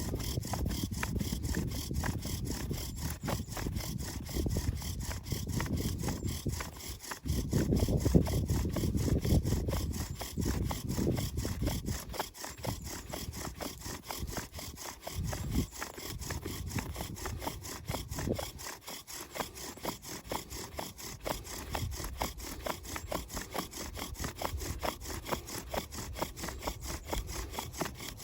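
Dry wood being sawn by hand in quick, even back-and-forth strokes, louder for a few seconds partway through.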